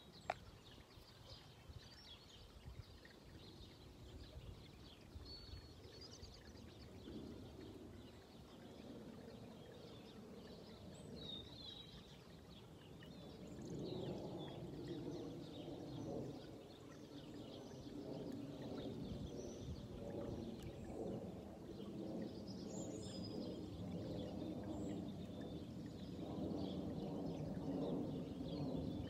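Small birds chirping and singing in short, scattered calls, over a low droning hum that grows louder from about halfway through.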